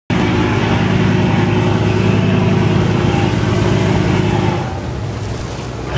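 Ferry boat's engine running steadily with a deep hum, heard from on board as the boat moves off the pier; it eases off somewhat near the end.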